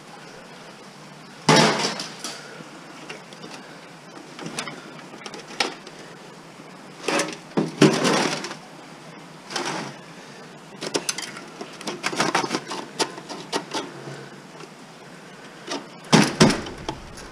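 Metal knocks, clanks and rattles from a steel desktop computer case being taken apart by hand, with parts pulled loose and set down on a workbench. There is a loud knock about a second and a half in, more around the middle, a run of quick small clicks after that, and another clatter near the end.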